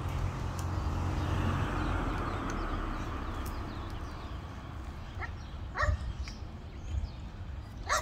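A steady rumble fades over the first few seconds, then an animal gives a few short, sharp calls from about five seconds in.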